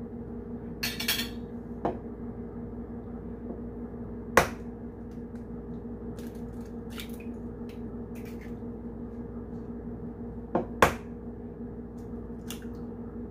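Eggs knocked against the rim of a glass bowl and cracked open: one sharp knock about four seconds in and a quick double knock near the end, with smaller handling clicks early. A steady low hum runs underneath.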